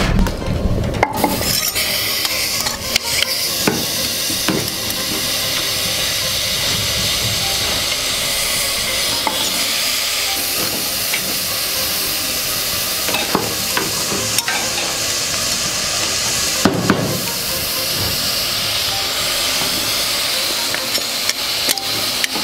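Food sizzling against super-heated stones: a steady frying hiss, with scattered knocks and clinks throughout.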